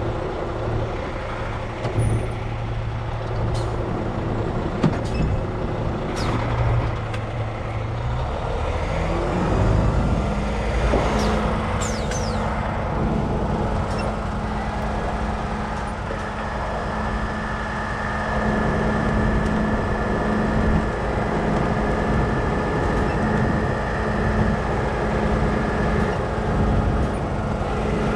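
Tow truck engine running steadily, stepping up to a higher, steady speed about nine seconds in while the wrecker pulls a pickup out of a ditch on its winch cables. A few short sharp clicks come over the engine.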